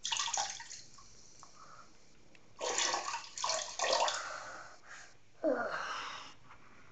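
Water splashing in three short bursts, the middle one the longest.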